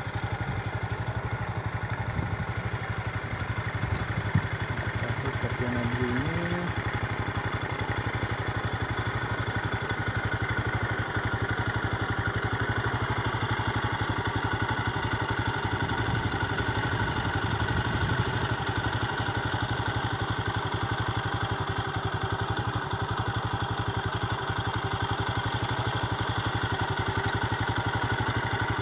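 Motorcycle engine running steadily while riding along a road, its firing pulses even and unbroken.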